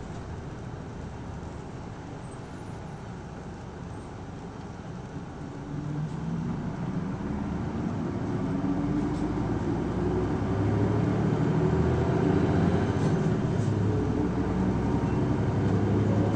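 Isuzu Erga city bus's diesel engine, heard from inside the cabin. It runs low and quiet at first; about six seconds in it picks up and climbs steadily in pitch and loudness as the bus pulls away and accelerates.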